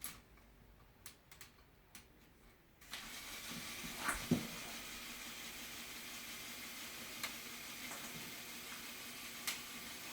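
Small electric motor of a motorized Lego model switching on about three seconds in and running steadily with a hissing whir and a faint hum. A few light plastic clicks come before it, and a knock comes about a second after it starts.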